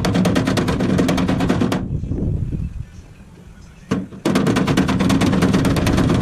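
A hand-held power tool working the steel of a car door: a rapid, even rattle of impacts with a hum under it. It stops about two seconds in and starts again about two seconds later.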